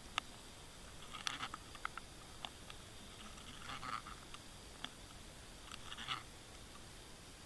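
Faint underwater clicks and short scratchy crackles while a fish attacks the live bait on a fishing rig in front of the camera: sharp single clicks scattered through, with crackling patches about a second in, near four seconds and near six seconds, over a steady hiss.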